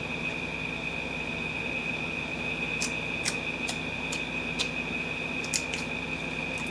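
Slime being handled, giving a series of small, irregular sharp clicks and pops from about three seconds in, over a steady high-pitched whine.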